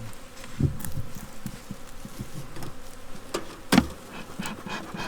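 Honey bees buzzing steadily around an open hive, with a few sharp knocks from handling the hive equipment, the loudest about three and a half seconds in.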